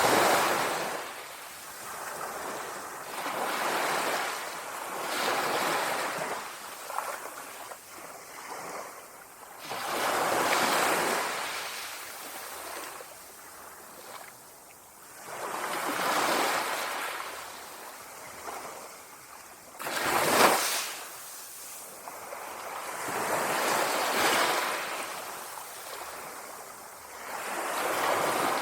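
Small waves of a calm sea lapping on the shore, each wash swelling and fading every few seconds, with one sharper, louder splash about twenty seconds in.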